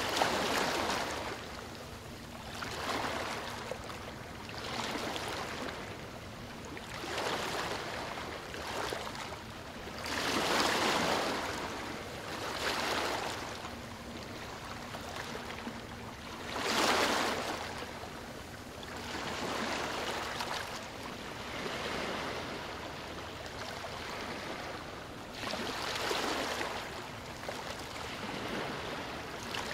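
Small sea waves lapping and washing around a microphone held at the water's surface, swelling every two to four seconds, with two larger swells about eleven and seventeen seconds in.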